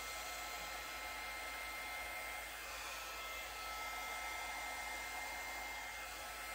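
Small hair dryer fitted with a narrow tube nozzle, running steadily while blowing poured acrylic paint across a canvas: an even airy rush with a faint high whine.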